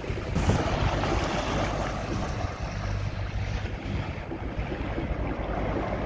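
Wind buffeting the microphone over the rush of sea water along a sailing catamaran's hulls while under way.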